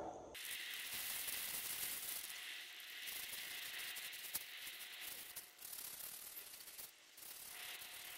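A brush scrubbing a wet, knobby off-road motorcycle tyre: steady scratchy scrubbing, with a couple of short pauses.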